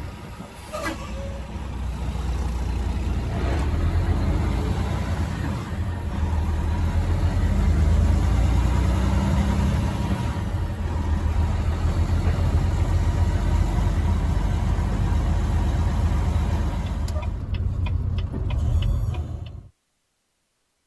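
Truck engine and road noise while driving: a low, steady running sound that builds over the first few seconds, then cuts off abruptly near the end.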